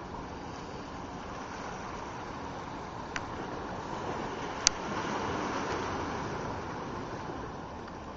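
Steady rushing noise of wind and calm sea water, swelling slightly midway. Two sharp clicks cut through it, about three seconds in and again about a second and a half later, the second much louder.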